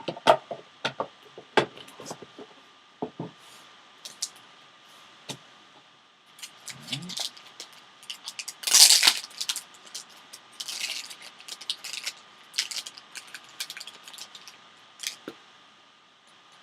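Hands handling trading cards and their packaging: a run of light clicks, taps and rustles, with a longer, louder rustle about nine seconds in.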